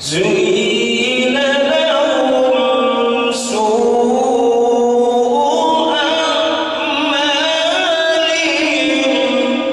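A man singing one long, ornamented vocal line into a microphone, the pitch wavering and sliding through melismatic turns. He takes a short break for breath about three and a half seconds in.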